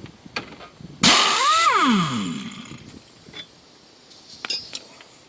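Impact wrench fired in one short burst about a second in, on a rusted trailer axle bolt that stays seized; its motor pitch rises and then winds down over about a second after the trigger is released. A few light clicks of the tool being handled come before and after.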